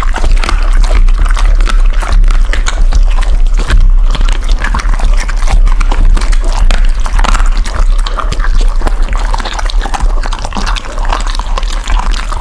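Dog chewing and crunching raw meaty bones, a dense run of crunches and clicks.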